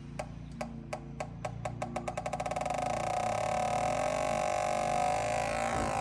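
Electronic gas leak detector ticking, its clicks speeding up until they run together into a continuous buzzing tone about three seconds in: it is picking up gas leaking at the water heater's connector.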